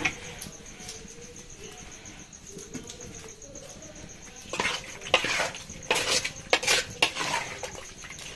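Spoon stirring food in a cooking pot, clinking and scraping against it. The clinks and scrapes come in a quick run starting about halfway through, after a quieter stretch.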